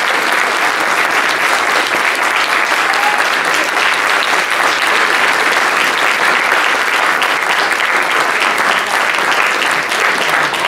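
Audience applauding steadily after a piano performance.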